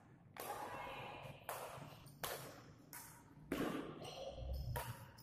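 Badminton rackets striking a shuttlecock in a rally: about five sharp hits a second or so apart, each echoing in the large hall.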